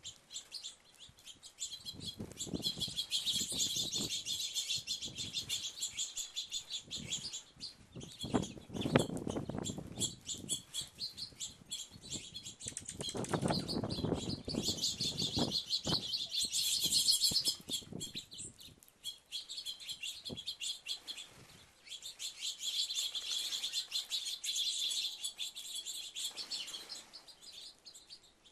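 A flock of small songbirds chirping rapidly and continuously, with several bursts of fluttering wings as birds fly in and out.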